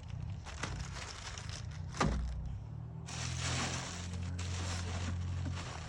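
Unboxing noises: packaging being handled with scattered clicks, a single thunk about two seconds in, then steady rustling from about three seconds on.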